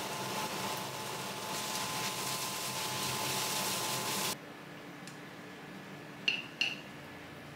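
Noodles, shrimp and vegetables sizzling in a hot pan, a steady hiss with a faint hum, tossed with chopsticks; the sizzle cuts off about four seconds in. A little later come two light clinks of chopsticks against a ceramic plate as the noodles are served.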